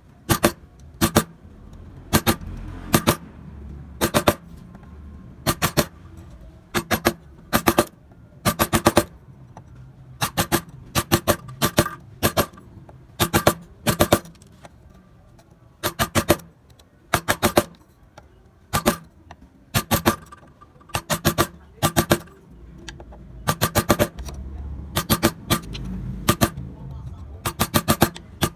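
Mallet tapping a wood-carving chisel into a carved wooden scroll: sharp knocks in quick pairs and small clusters, about one to two a second.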